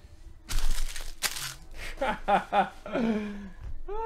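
Foil card-pack wrapper crinkling and tearing for about a second, followed by a few short voice sounds.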